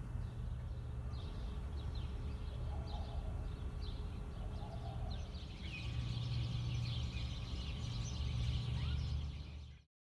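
Outdoor ambience of small birds chirping, busier in the second half, over a steady low rumble; the sound cuts off abruptly near the end.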